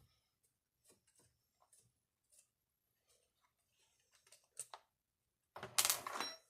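Scattered light clicks and taps of hand tools and chainsaw parts being handled, then a louder clatter lasting under a second near the end.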